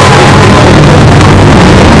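Historic Formula 1 racing car engine running hard as it passes, with a steady engine note, the whole recording boosted so loud that it is heavily distorted.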